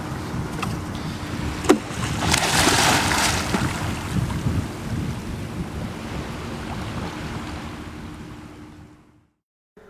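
Wind buffeting the microphone with the wash of surf on a beach, fading out about a second before the end.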